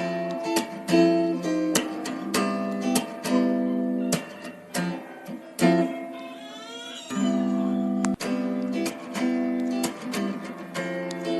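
Background music: acoustic guitar picking and strumming a run of plucked notes.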